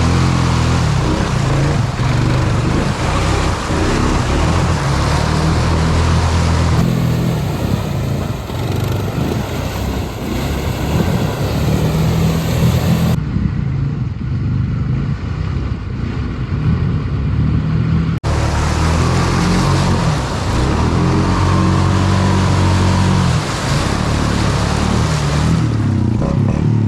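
Honda Foreman ATV engine revving hard as it pushes through mud and water, its pitch rising and falling under load. The sound changes abruptly three times, between separate riding clips.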